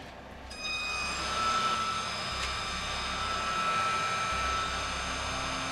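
CNC milling machine spindle starting up about half a second in and then running at a steady speed, a steady whine of several high tones. There is a single faint tick about two and a half seconds in.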